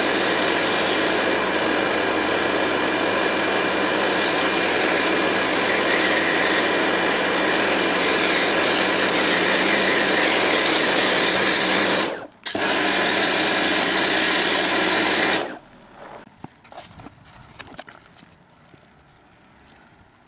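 Pressure washer running steadily while its foam lance sprays snow foam. It drops out for a moment about twelve seconds in, when the trigger is released, runs again, then stops about three seconds later. Only faint scattered ticks follow.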